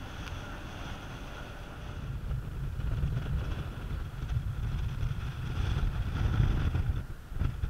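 Strong wind buffeting the microphone on a sailing ship's deck: a rough, gusting rumble that builds about two seconds in, with a faint steady whine underneath.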